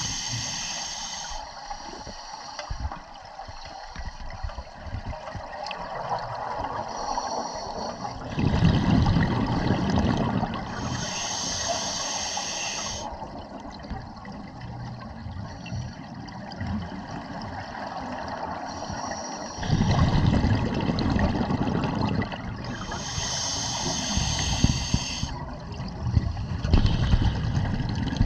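Scuba regulator breathing underwater, heard close up in a slow cycle: three hissing inhalations through the regulator, at the start, about halfway and near the end. Between them, twice, a louder rush of exhaled bubbles.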